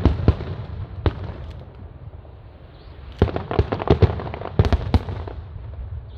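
Aerial fireworks exploding: a couple of single bangs in the first second, then a rapid volley of bangs from about three to five seconds in, with a low rumble between them.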